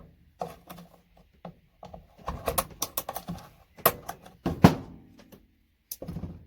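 Irregular clicks and knocks of small plastic and metal parts as an RJ45 ethernet connector is pried and picked apart to free its pins, with a couple of sharper knocks about four to five seconds in.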